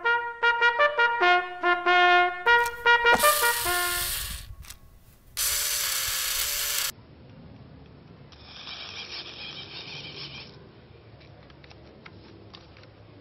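A quick run of brassy musical notes for about four seconds, then a short burst of hiss. After that a small electric motor of a radio-controlled toy car whirs for about two seconds, with faint clicks around it.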